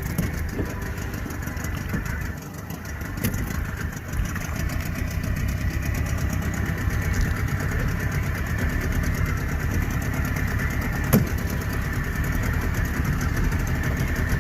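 Fishing boat's engine running steadily with a fast, even low pulse, and a sharp knock about eleven seconds in.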